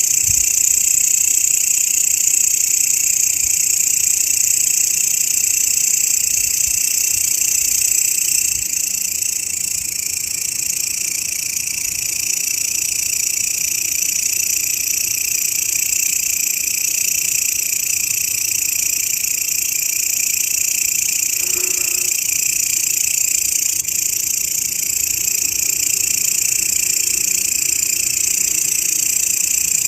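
Grasshopper (belalang) stridulating: a continuous high-pitched buzzing that holds steady without breaks.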